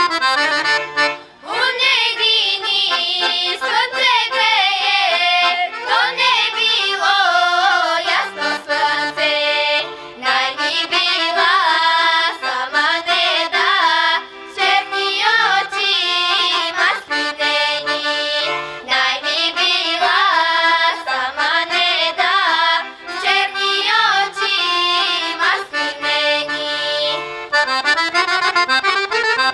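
Accordion playing a Bulgarian folk tune, accompanying a group of young girls singing in traditional folk style.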